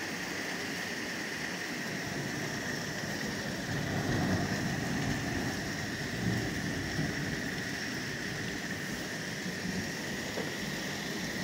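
Heavy downpour of rain falling steadily, an even hiss, with a low rumble swelling briefly about four seconds in.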